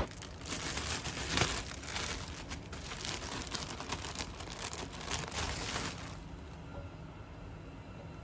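Thin plastic bread bag crinkling and rustling in the hands as it is opened and bread slices are taken out. The crinkling dies away about six seconds in.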